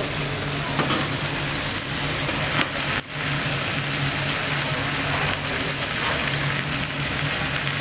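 A steady low mechanical hum, like a running engine or motor, under an even hiss. It cuts out for an instant about three seconds in.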